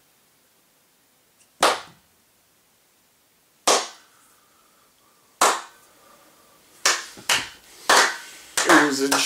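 A slow clap: single hand claps about two seconds apart that come closer and closer together, breaking into rapid clapping near the end.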